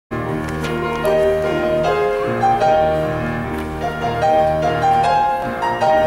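Music from a high-school mixed choir singing with piano accompaniment, sustained notes moving in steps.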